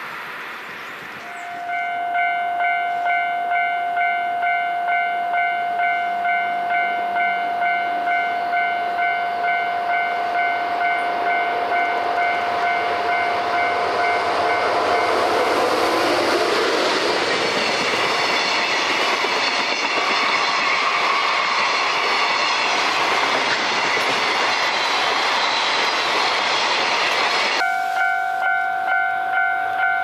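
Level-crossing warning bell starts about a second and a half in, a steady pulsing ding-ding at a bit over one beat a second. About halfway through a train runs through the crossing, its loud rushing noise covering the bell, then the train noise stops abruptly near the end and the bell goes on ringing.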